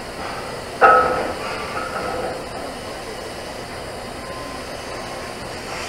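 TIG welding arc on a 12-inch pipe joint, a steady hiss under a run without weaving the torch. About a second in, a sudden loud ringing sound cuts in and fades over a second or so.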